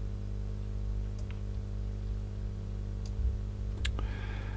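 A few faint computer mouse clicks, one sharper click near the end, over a steady low hum.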